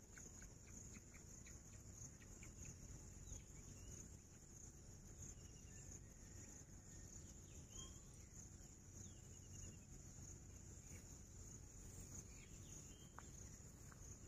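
Near silence: a faint, steady, high-pitched insect drone, with a few faint short chirps.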